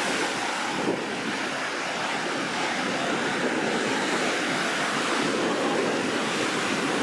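Rough sea surf washing and breaking steadily, with wind blowing across the microphone; the sea is stirred up ahead of a typhoon.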